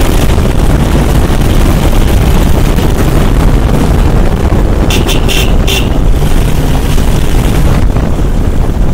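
Motorcycle riding along a road, with its engine running and a steady low rush of wind on the microphone. About five seconds in there are four quick, high-pitched beeps.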